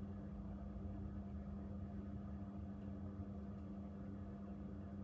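A steady, even machine hum with one constant low tone.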